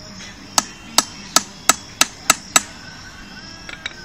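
Seven sharp tool strikes, about three a second, each ringing briefly, on a car battery's lead terminal post being rebuilt. Two faint clicks follow near the end.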